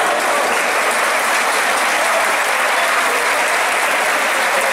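Basketball arena crowd clapping and cheering: a loud, steady din of many hands and voices.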